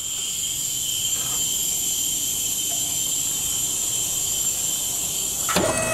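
Hannon 620H hydraulic die cutter starting a cut cycle: a steady high hiss, then about five and a half seconds in a motor hum with several steady tones starts and carries on.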